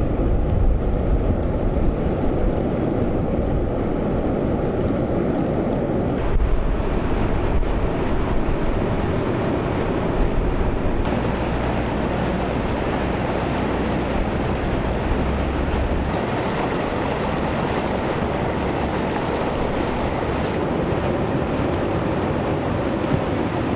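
Floodwater rushing and churning steadily, with wind buffeting the microphone as low rumbles. The sound changes abruptly several times.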